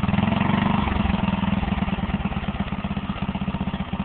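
Riding lawn mower's engine running as it climbs over creek-bed rocks, with an even pulsing exhaust beat. It is loudest and fullest for about the first second, then settles into a steady rhythm.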